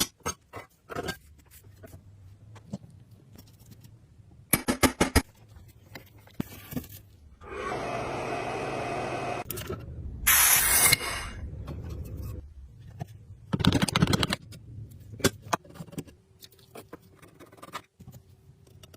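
Hand work on old metal parts: scattered clicks and knocks, with a steady scrape for about two seconds near the middle and two short, louder scraping bursts after it.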